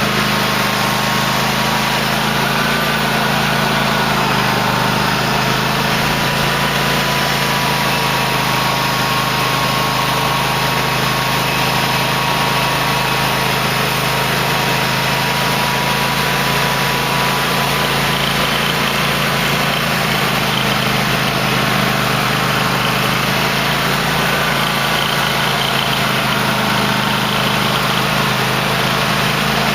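2008 Cub Cadet LT1050 lawn tractor engine running steadily at an even speed.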